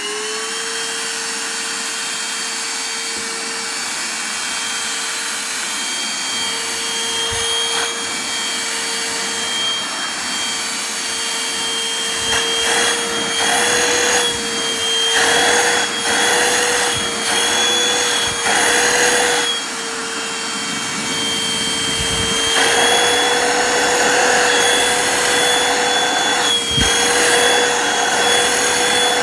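Bagotte cordless handheld vacuum cleaner running with a steady high motor whine. From about twelve seconds in, its pitch wavers and a rushing air noise swells and fades repeatedly.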